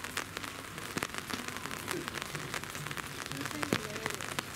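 Rain falling on hard surfaces: a steady hiss dotted with many irregular sharp drip ticks.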